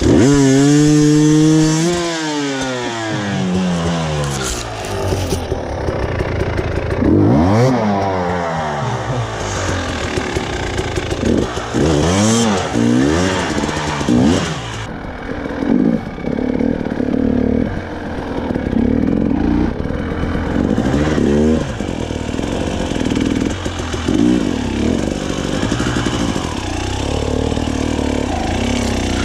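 Two-stroke KTM 300 TPI enduro dirt bike engine, starting abruptly and then revved in repeated blips that rise and fall in pitch, running steadily between blips.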